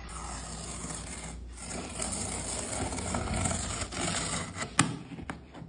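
Packing tape being pulled off a cardboard box, a steady tearing, rasping noise that grows louder through the middle, with one sharp snap near the end.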